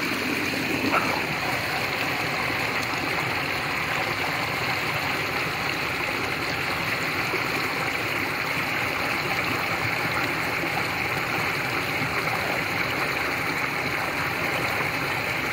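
Small mountain creek running over rocks: a steady, even rush of flowing water.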